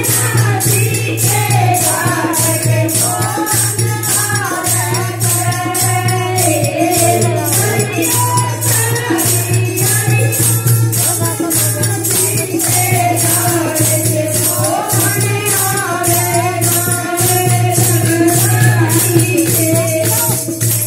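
Women singing a Krishna bhajan into a handheld microphone, over jingling hand percussion that keeps a steady beat.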